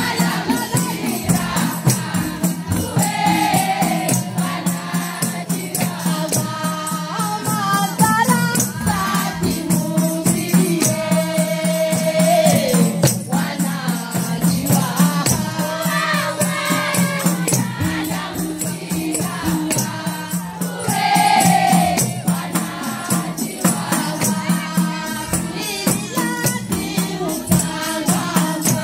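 Women's choir singing a déba, the Mahoran Sufi devotional chant, in unison with call-and-response phrasing, over a fast, steady rattling percussion beat.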